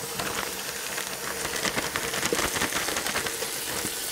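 Kitchen faucet running into a stainless steel bowl of water, a steady splashing, while a bagful of wild sweet pea shoots is dumped in and pushed under by hand.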